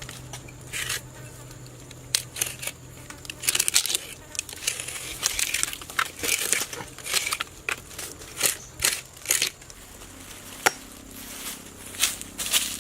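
Irregular crinkling and crackling rustles, broken by sharp clicks and snaps.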